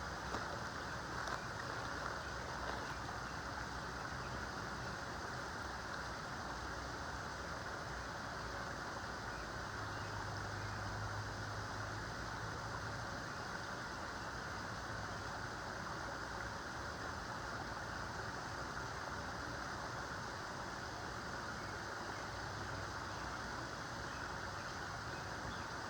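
Steady rushing noise of flowing creek water, with a low hum that swells briefly about ten seconds in.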